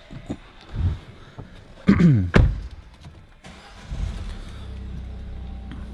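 Peugeot 508 e-HDi's 1.6-litre four-cylinder turbo diesel being started. A few knocks and a sharp thump come first, then the engine catches about four seconds in and settles into a steady idle.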